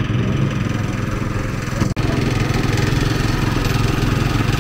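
A small engine running steadily with an even, rapid beat, cut off for an instant about two seconds in.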